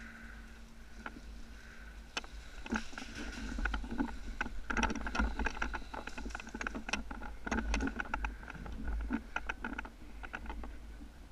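Scattered sharp snaps of airsoft guns firing and BBs striking in an indoor arena, irregular and busiest around the middle, over a low rumble of movement on the microphone.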